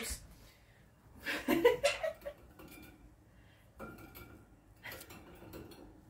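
Faint metal clinks, a few times in the second half, from clips on a wire bird cage being handled; one clink rings briefly. A short voice sound comes about a second and a half in.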